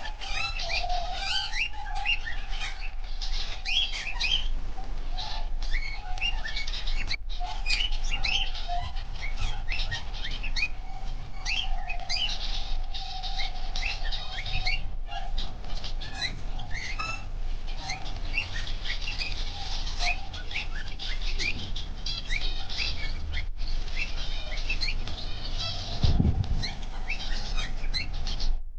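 A colony of aviary finches chirping continuously, many short high calls overlapping, with a low thud near the end.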